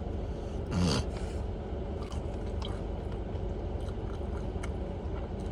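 A person chewing a chicken nugget dipped in sauce, with a short vocal sound about a second in, over a steady low hum.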